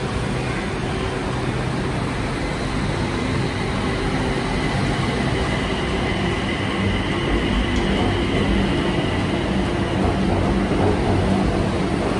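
BTS Skytrain EMU-B3 electric train moving along the station platform. Its motors give a whine that rises gently in pitch over a steady running hum, growing a little louder as the cars go by.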